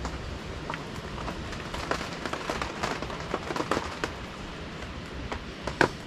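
Small irregular clicks and rustles from fingers working a carp rig, threading a pop-up boilie onto a baiting needle and the hair, over a steady low hiss.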